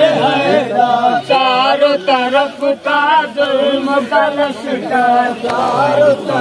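Group of men chanting a noha, a Muharram lament, with several male voices singing together.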